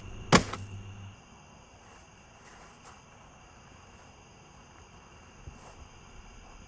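A steady insect chorus, like crickets chirping, with one sudden loud sharp crack about half a second in.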